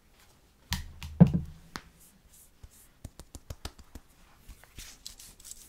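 Hands handling a small sunscreen product close to the microphone: a loud knock about a second in, then a quick run of light taps or clicks, and soft rubbing of skin near the end.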